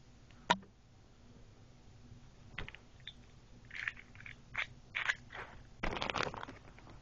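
Small plastic toy parts and packaging being handled: scattered light clicks and crinkly rustles, a denser crinkle near the end.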